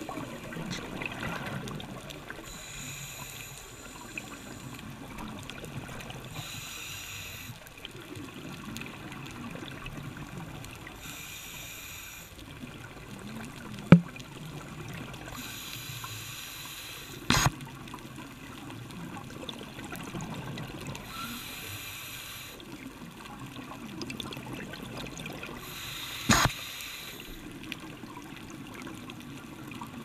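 Scuba diver breathing through a regulator underwater: a bubbling hiss of exhaled air about every four to five seconds, with low gurgling between. Three sharp knocks stand out, the first the loudest.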